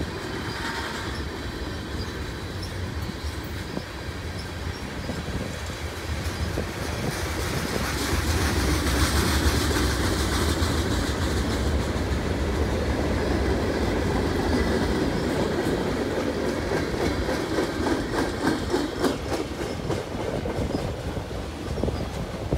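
Freight cars of a passing train rolling on steel wheels over the rails: a steady rumble and clatter that grows louder partway through, with a quicker rhythmic clickety-clack of wheels over rail joints near the end.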